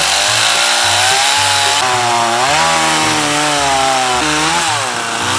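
Chainsaw running at high revs, sawing through a wooden log; the engine's pitch drifts up and down as the chain works through the cut.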